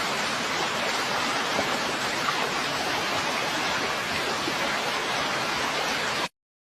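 Steady, even rushing of water with no distinct drops or splashes. It cuts off suddenly shortly before the end.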